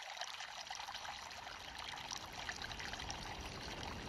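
Shallow river water running and trickling over a riffle around a kayak, a steady hiss of many small splashes.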